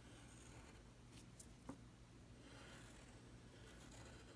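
Faint scratching of a drawing tool on paper as small circles are drawn, with a couple of light clicks, close to near silence.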